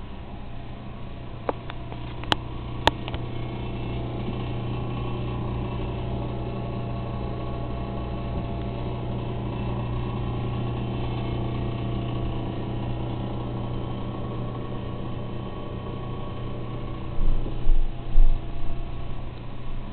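Refrigerator running with a steady hum made of several tones, the abnormal noise that comes and goes as an intermittent fault. About two seconds in there are three sharp clicks, and near the end a few low thumps.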